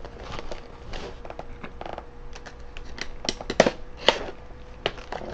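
Stiff clear plastic clamshell packaging being worked open with a small hand tool: a run of irregular clicks, snaps and crackles, a few of them louder in the second half.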